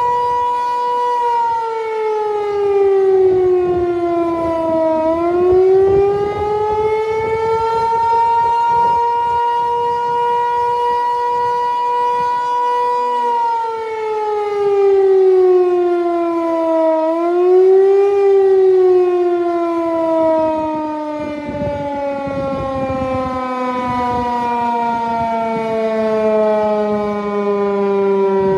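Federal Signal 508 outdoor warning siren sounding one steady, loud tone. Its rotator is broken, so the sound does not swell and fade as a turning siren's would. The pitch sags and recovers twice, then slides steadily lower near the end.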